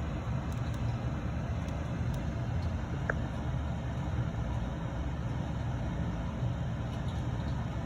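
Steady low background rumble, with one small sharp click about three seconds in as the wiring connector snaps onto the oil pressure sensor.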